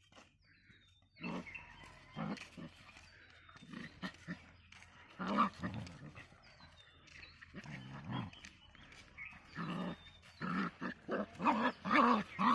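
Puppies growling and barking as they play-fight. The calls come in short bursts after about a second and get louder and faster near the end.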